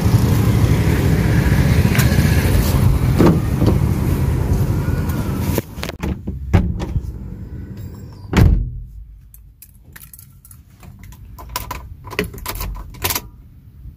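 Strong storm wind rushing over the microphone, cut off abruptly about six seconds in as the car door shuts. Inside the closed cabin there is a low thump about eight seconds in, then scattered clicks and the jingle of keys.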